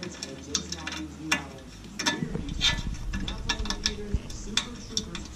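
Scattered clicks and knocks of hand tools on the van's dash frame as the wiring-harness ground connections are unbolted.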